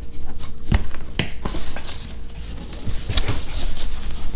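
Cardboard box and packaging being handled and opened: a series of sharp knocks and clicks with scraping between them.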